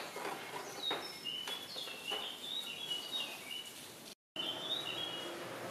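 A small bird chirping a quick run of short high notes, with a few light clicks and knocks as a plastic front fender panel is handled off a scooter's fork.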